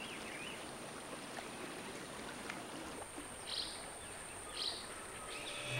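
Quiet natural outdoor ambience: a low even hiss with a faint steady high-pitched tone, a few faint chirps near the start, and two short high calls about three and a half and four and a half seconds in.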